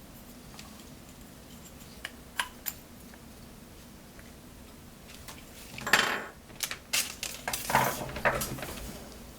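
Small metal parts and tools being handled: a couple of faint clicks, then, past the middle, a run of sharp metallic clinks and clatter.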